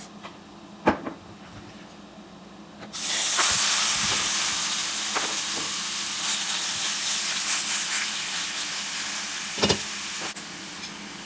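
Food sizzling in a hot pan, a loud steady hiss that starts suddenly about three seconds in and stops abruptly near the end, with a sharp knock of a utensil before it and another just before it stops.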